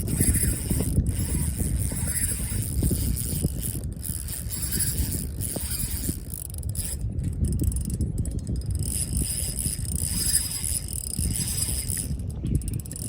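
Fishing reel's drag buzzing steadily as a hooked golden trevally keeps running and pulling line off the spool, with wind on the microphone.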